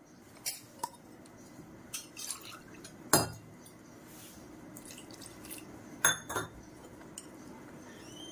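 Kitchen utensils clinking against a bowl while thick batter is thinned with water and mixed. There are several sharp clinks, the loudest about three seconds in and two more close together about six seconds in.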